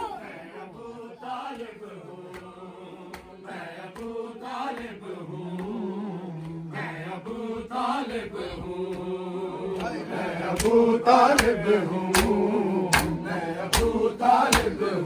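Men's voices chanting a noha, a Shia mourning lament, in long held notes, with sharp slaps of hands on bare chests (matam); the slaps grow louder and come about once a second in the second half.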